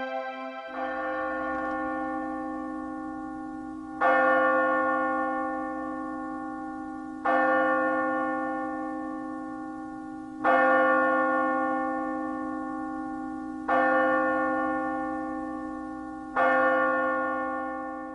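Background music of bell-like tones: a chime struck six times, about every three seconds, each ringing out and fading over a steady low drone.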